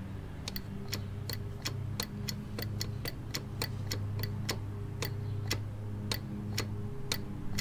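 A ratchet wrench clicking as it turns a nut, sharp clicks about three a second at a slightly uneven pace, over a steady low hum.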